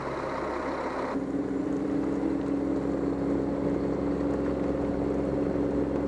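Tracked snow groomer (PistenBully 600) with its diesel engine running steadily. About a second in the sound changes and a steady hum comes in.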